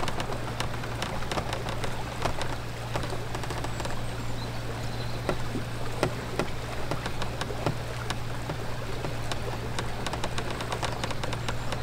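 A barge's engine running with a steady low drone while water splashes and laps against the hull as the boat moves along.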